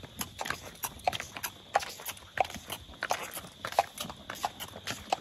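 A horse's hooves clip-clopping on a hard road at a walk, a steady beat of about three or four hoof strikes a second.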